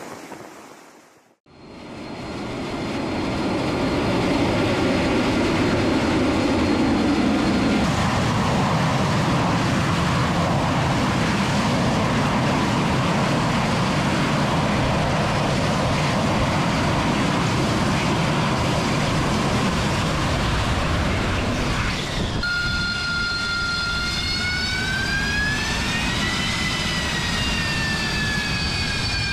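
AV-8B Harrier II jet with its Pegasus turbofan running: a loud, steady jet roar fades in about two seconds in. About twenty-two seconds in it gives way to the engine's high whine, which rises and then falls in pitch.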